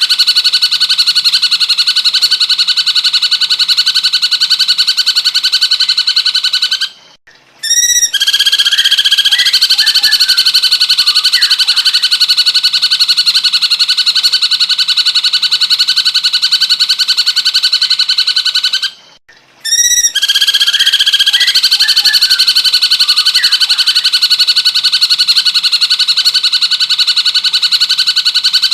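Recorded cucak cungkok song played as a masteran track: a loud, continuous fast buzzy trill that breaks off briefly twice, each time starting again with a quick run of notes, repeating at even spacing like a loop.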